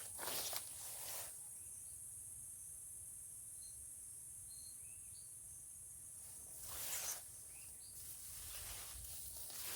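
Steady high-pitched drone of insects, with a few short bird chirps in between. Rustling steps through vegetation near the start and again about seven seconds in.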